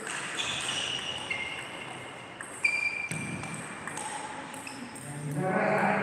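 Table tennis balls clicking off paddles and tables during rallies, with one sharp, loud hit about two and a half seconds in.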